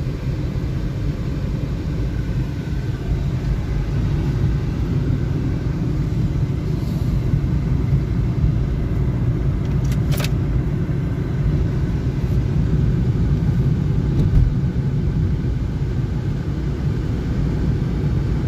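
Steady low rumble of a car driving, heard from inside the cabin: road and engine noise mixed with strong wind pressing on the car. A single brief click about halfway through.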